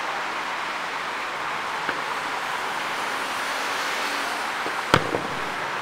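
Aerial fireworks heard from a distance: a single sharp boom about five seconds in, followed by a fainter pop, over a steady outdoor noise hiss.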